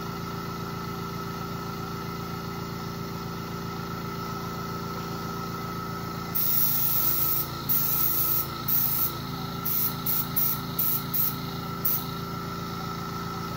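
Airbrush spraying in short hissing bursts, starting about six seconds in: one longer burst, then about nine quick ones, as dye is misted onto a turned wooden bowl. A steady machine hum runs underneath.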